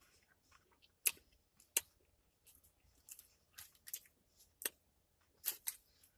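Chewing a deep-fried Twinkie, its fried batter giving irregular faint crisp crunches.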